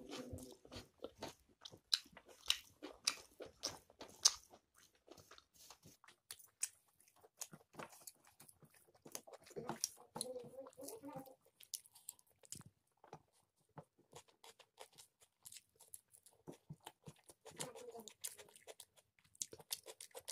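Close-up sound of a person chewing rice and chicken curry, with many sharp, irregular wet clicks and smacks. The clicks are loudest a few seconds in.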